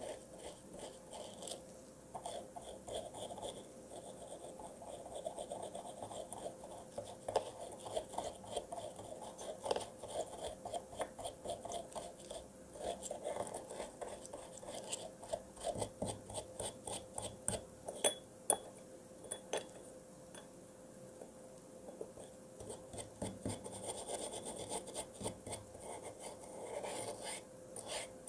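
Stiff brush scrubbing small watch movement parts in a dish of white benzine: quick, irregular brushing strokes with frequent light clicks as the parts knock against the dish, over a faint steady hum.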